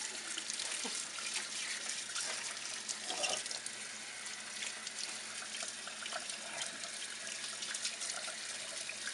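Water running steadily from a kitchen sink faucet's pull-out sprayer, splashing onto a wet Pomeranian puppy and the sink basin as she is rinsed off after a bath.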